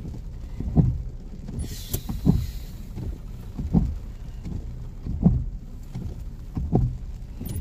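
Car windshield wipers sweeping across a rain-wet windshield, one stroke about every second and a half, over the steady rumble of the moving car. A brief hiss comes about two seconds in.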